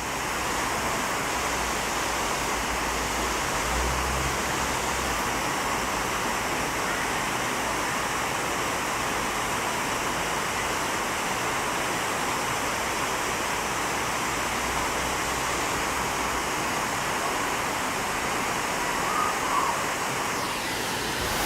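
Dzhur-Dzhur waterfall rushing steadily, with now and then a low rumble underneath.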